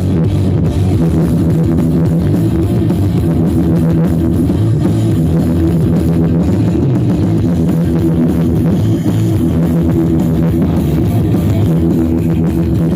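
Loud rock music with drums and guitar played over a large sound system with 15-inch speakers during an SPL sound check, heavy in the bass.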